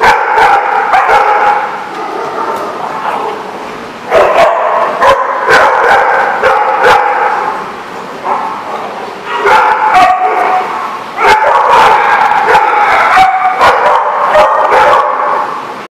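Dogs yipping, whining and barking in rough play. The calls come in loud bursts with short lulls between them.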